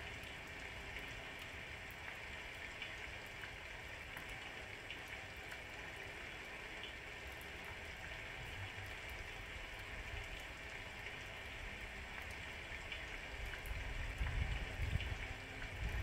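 Steady rain falling, an even hiss with scattered ticks of single drops. A low rumble swells in the last couple of seconds.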